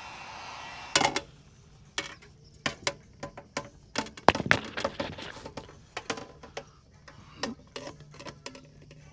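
A heat gun's steady blowing hiss cuts off about a second in. A string of sharp clicks and light metallic knocks follows as the freshly bent refrigeration evaporator plate is handled.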